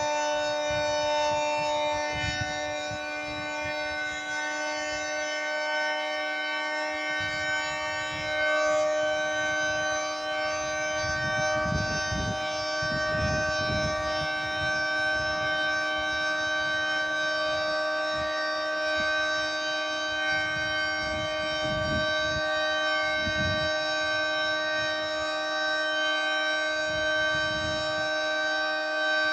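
High-pitched Federal Signal 3T22 three-tone outdoor warning siren sounding its steady Alert signal: a held multi-note chord whose level swells and fades slightly as the rotating siren head turns.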